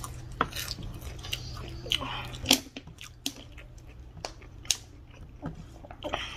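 Close-up eating sounds: chewing and lip smacks, with wet squelches of a hand mixing rice and chicken curry on a steel plate and many short sharp clicks. A faint steady hum runs underneath.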